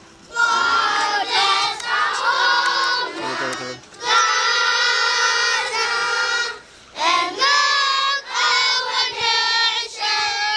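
A group of schoolboys singing together in unison, in phrases broken by short pauses about four and seven seconds in.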